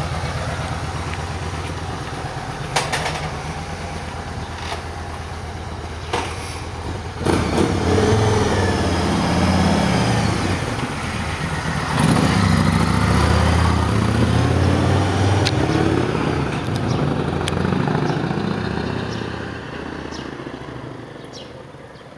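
Yamaha Road Star Warrior's V-twin engine idling with a steady beat, then revving as the motorcycle pulls away about seven seconds in. It is loudest as it passes close by around twelve seconds, and fades as it rides off.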